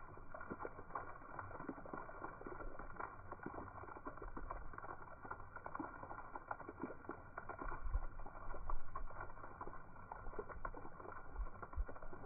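A dog lapping and mouthing at a splash-pad water jet: many small irregular wet clicks and splashes, with a few low thumps near the end.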